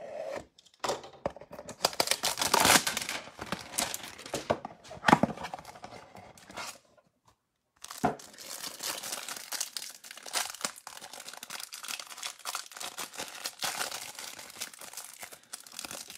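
Cardboard box and cellophane wrap being torn open, then the plastic crinkled and peeled off a stack of trading cards: a continuous run of tearing and crackling, broken by a second's pause about seven seconds in.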